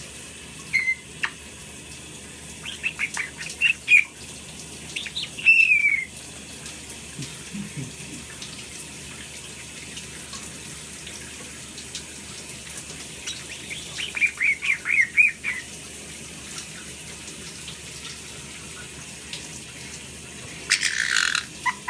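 Caique parrot chirping in short bursts over steadily running shower water: quick runs of chirps in the first few seconds, a longer call falling in pitch, another rapid run of chirps about two thirds of the way in, and a louder call near the end.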